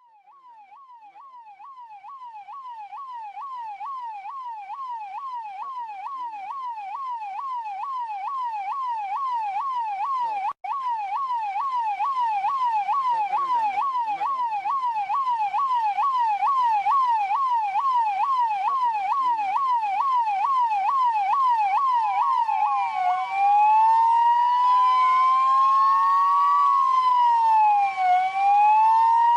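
Police siren in a fast yelp, sweeping up and down about three times a second and growing louder over the first ten seconds or so, with a brief cut about ten seconds in. About 23 seconds in it changes to a slow wail, two tones crossing as they rise and fall every few seconds.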